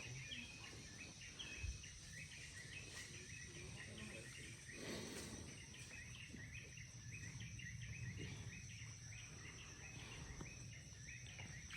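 Faint rural outdoor ambience: a rapid run of short, repeated high chirps over a steady high-pitched drone, typical of insects and birds.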